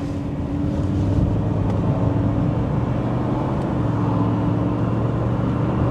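Freshly rebuilt LS4 5.3-litre V8 in a Chevy Monte Carlo SS running steadily under light throttle from inside the cabin, with the engine note shifting in pitch partway through. The engine is being broken in on its first test drive to seat new piston rings.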